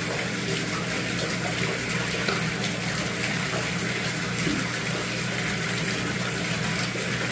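Water running and splashing steadily into a tub, over a steady low hum, typical of a small electric water pump moving water.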